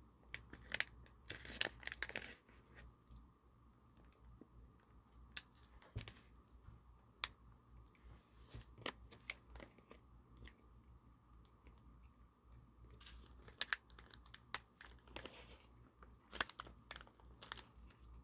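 Plastic gummy-candy pouch crinkling and rustling as it is handled and its top pulled at, in scattered short bursts with a few small clicks; loudest near the start and again in the last few seconds.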